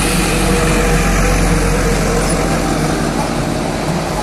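Transjakarta city bus engine running steadily, with street traffic noise around it.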